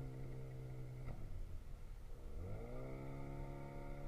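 Fishing boat's engine running steadily. It eases off about a second in, then revs up quickly and settles at a higher steady pitch.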